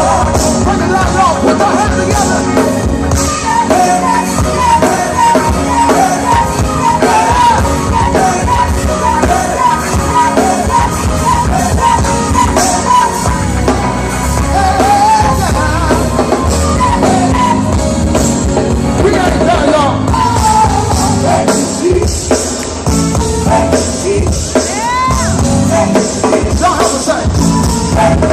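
Choir singing with a full band: drums, bass and keys under loud, wavering sung lines, with shouts from the singers.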